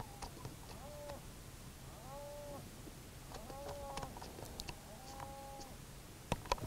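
Electronic predator caller playing a prey distress call: four faint, short cries, each two tones rising and falling together, about a second and a half apart. Two sharp clicks near the end.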